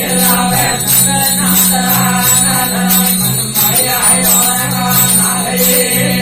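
Instrumental passage of Rajasthani desi veena bhajan music: a steady drone under a melody line, with jingling percussion keeping a regular beat.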